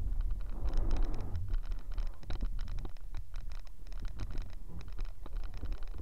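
Inflatable kayak moving down a shallow, stony stream, with water lapping against the low-mounted camera and hull: a dense run of small clicks and scratchy ticks over a steady low rumble.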